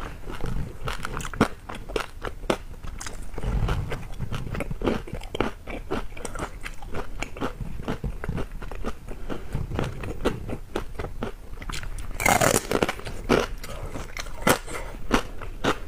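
Close-miked chewing of crispy-skinned pork belly: an irregular run of sharp crackles and crunches from the crackling skin, with a louder burst of crunching about twelve seconds in.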